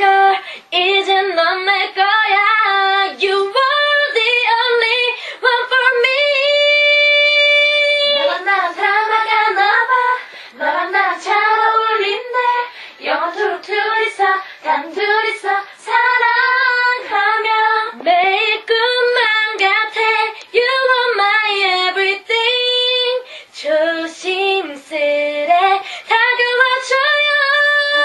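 Young women singing a Korean pop ballad live into studio microphones, their voices carrying the melody with phrases and breaths between lines. About six seconds in, a note is held for about two seconds.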